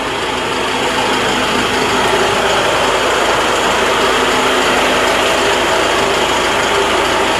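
Truck refrigeration (reefer) unit running, a loud steady mechanical drone with a hum through it. It grows a little louder over the first couple of seconds.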